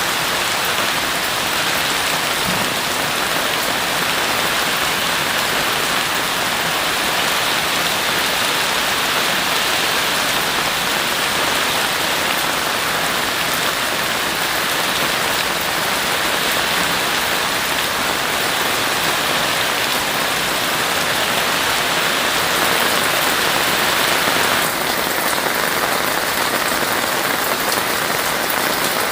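Heavy rain falling steadily, a dense even patter of drops on surfaces, with a sudden slight change in tone near the end.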